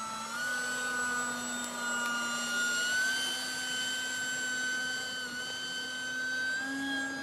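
Radio-controlled Eurofighter model jet flying overhead, its motor giving a steady high whine that steps up in pitch about three seconds in, dips briefly near five seconds and rises again near the end.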